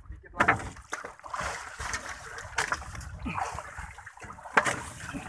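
A hooked fish splashing at the water surface as it is reeled up alongside a small boat, with several sharp splashes through the thrashing.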